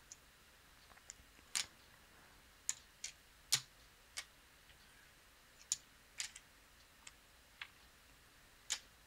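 Casino chips clicking against each other as they are picked up, stacked and set down on the felt, about a dozen sharp, irregular clicks.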